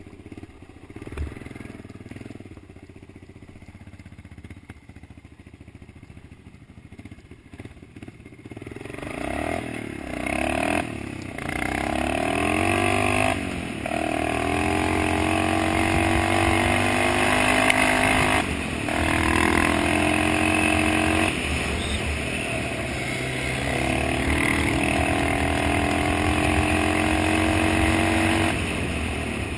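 Dirt bike engine, fairly quiet at first, then accelerating hard from about nine seconds in, its pitch rising in steps with a short dip at each gear shift.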